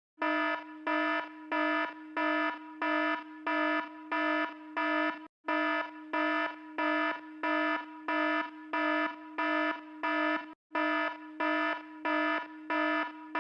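Electronic alarm-style beeping: a buzzy tone at one steady pitch, pulsing about every two-thirds of a second over a fainter continuous tone, breaking off briefly twice as if looped.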